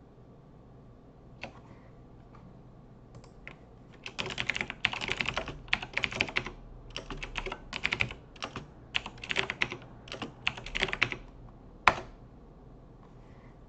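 Typing on a computer keyboard: a few scattered keystrokes, then a fast run of typing from about four seconds in until about eleven, ending with one sharp, louder keystroke near the end.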